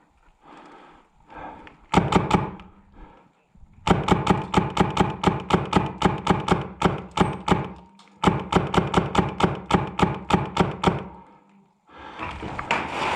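Airsoft gun firing: a short burst of three or four shots about two seconds in, then long strings of rapid shots at about four a second, broken by a brief pause near the middle.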